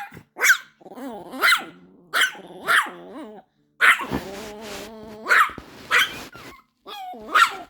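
Angry chihuahua growling, with about eight sharp barks breaking through the growl, in a squabble between two small dogs.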